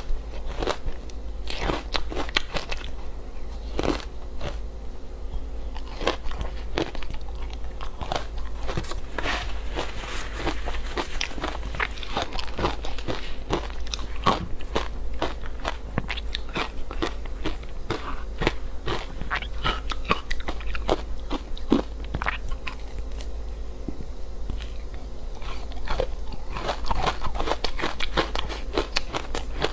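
A person biting and chewing frozen matcha ice close to the microphone: dense, irregular crunching and crackling, over a low steady hum.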